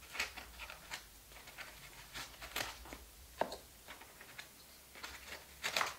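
Handling noise: light clicks and taps of plastic magazine grip extensions and a steel pistol magazine being handled and set into a foam-lined hard case. A handful of separate clicks, a sharper one about midway and a short cluster near the end.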